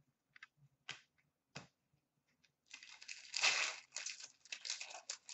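A few light clicks of cards being handled, then, about two and a half seconds in, a hockey card pack's wrapper crinkling and tearing open.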